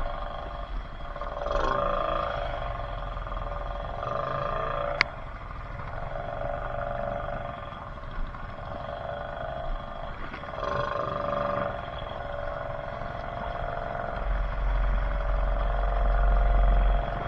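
ATV engine running while riding, its drone swelling and easing every few seconds, with one sharp click about five seconds in and a louder low rumble near the end.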